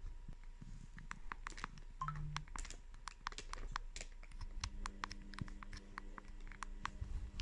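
Keypad buttons of an Alcatel 1030X feature phone clicking under repeated quick presses, several a second at an uneven pace, as the menus are stepped through. A short low buzz comes about two seconds in.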